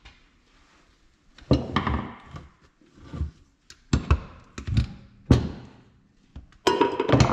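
Several irregular knocks and thumps of metal hydraulic valve parts being handled and set down on a workbench, with a closer cluster of knocks near the end.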